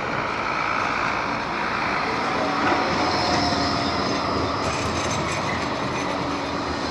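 Bombardier Flexity 2 tram running past at close range: a steady electric hum over the rolling noise of its wheels on the rails, loudest about three seconds in.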